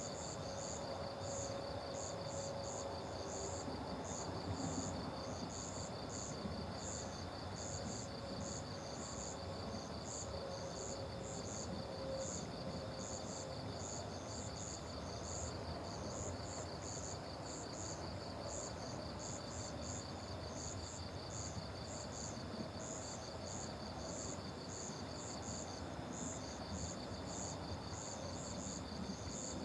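Night insects calling together: a fast, even pulsing trill and higher, irregular chirps over it, steady throughout.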